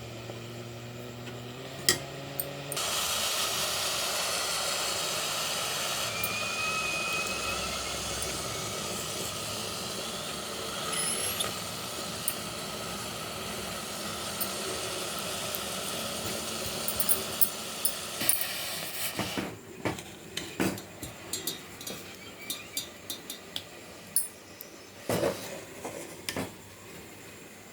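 A steady hissing rush for about fifteen seconds, then many sharp clinks and taps of kitchen utensils and dishes.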